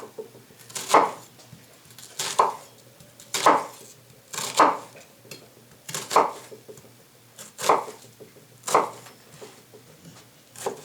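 A knife slicing through half a red onion on a cutting board: about seven slow, evenly spaced cuts, roughly one every second and a quarter.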